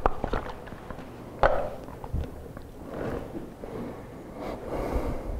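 Handling noises at a wooden pulpit: a few clicks as a plastic water bottle is capped, one sharp knock as it is set down on the pulpit, then paper rustling as Bible pages are turned.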